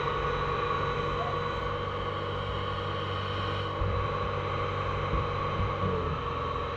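Rice harvester's engine running at a steady drone.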